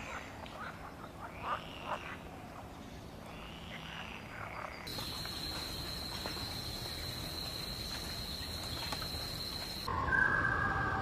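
Wildlife ambience with animal calls. Two arching, croaking calls come in the first few seconds. About five seconds in a steady high-pitched whine starts, and it stops about ten seconds in as louder bird calls begin.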